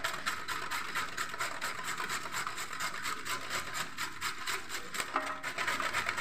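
Red carrots being grated by hand on a stainless steel box grater: quick, even rasping strokes, four or five a second.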